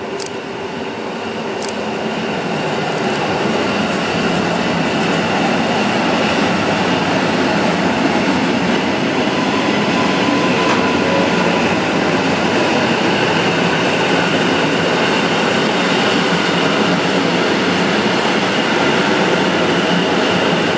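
Koleje Mazowieckie EN57AKM electric multiple unit running past along the platform, its wheel and track noise growing louder over the first few seconds as it draws near, then holding steady as the carriages go by.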